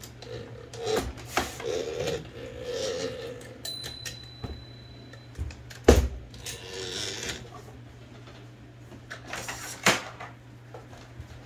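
Small metal clicks and clatter of typewriter carriage parts being handled and fitted together, with two sharper clicks about six and ten seconds in, over a steady low hum.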